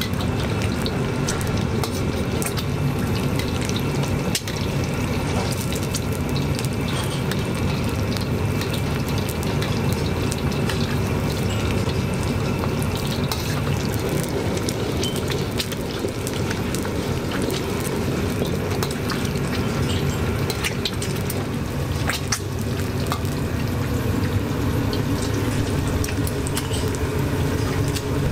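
Eggs deep-frying in plenty of hot oil in a carbon-steel wok, sizzling and crackling steadily over a constant low rushing noise.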